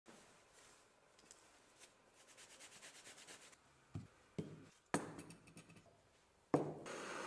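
A glass jar's metal screw lid being handled and taken off: a run of fast, even scraping clicks, then several sharp knocks as the lid and jar are knocked against the bench. Near the end comes a louder knock, followed by a steady hiss.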